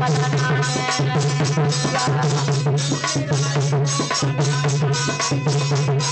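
Instrumental interlude of a folk bhajan: harmonium holding the melody over a steady dholak rhythm, with the jingles of a chimta on the beat.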